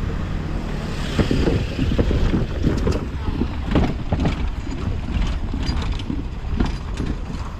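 Small box truck's engine running as it drives across a railway level crossing close by, with irregular knocks and wind noise on the microphone.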